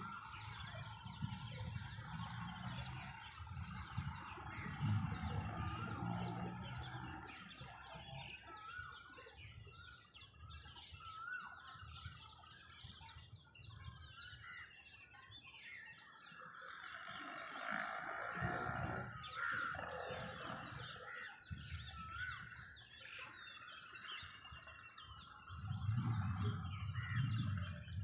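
Several birds chirping and calling in overlapping short twittering phrases during the dawn chorus, over a low rumble that comes and goes and swells near the end.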